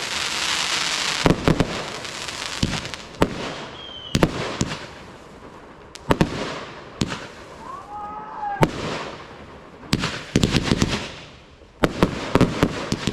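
Fireworks display: shells bursting in a series of sharp bangs, many in quick clusters, with a dense crackling hiss in the first second or so.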